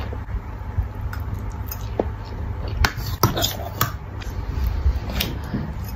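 A metal fork clinking and scraping against a stainless steel cooking pot while pasta is scooped up, with a few sharp clinks in the middle, over a steady low background rumble.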